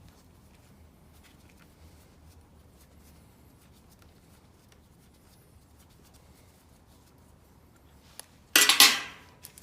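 Chainsaw chain and bar being handled during reassembly: faint small clicks over a low room hum, then near the end one loud, short clatter lasting under a second.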